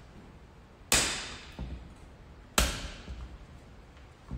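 Two sharp knocks about a second and a half apart as a new brush is lined up and pressed into place in a John Deere radial bean meter's housing.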